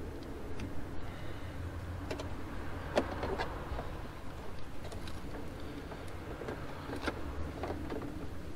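Hands handling and routing silicone vacuum hoses among engine-bay parts: scattered light clicks, knocks and rustling, the sharpest click about three seconds in, over a steady low background hum.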